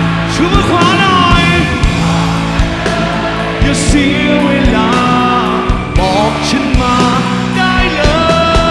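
Live rock band playing with drums and guitars, a male lead singer belting the melody over it.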